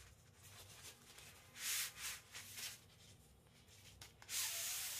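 Rubbing and scraping of the Insta360 extended selfie stick being handled: a few short friction sounds about one and a half to two and a half seconds in, then a longer, louder one near the end.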